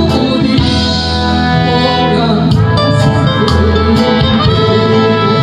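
A man singing a Korean trot song into a microphone over amplified instrumental accompaniment, with a steady beat of about two strikes a second.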